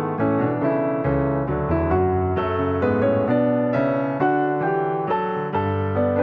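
Background piano music: a gentle, flowing melody of evenly paced notes over sustained low chords.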